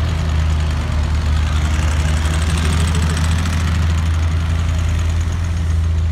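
Loaded dump truck's diesel engine running as the truck drives slowly over rough dirt: a steady low engine drone, with more noise higher up about two to three seconds in.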